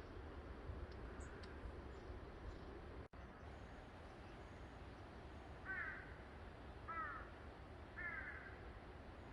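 A crow cawing three times, about a second apart, in the second half, over a steady background hiss.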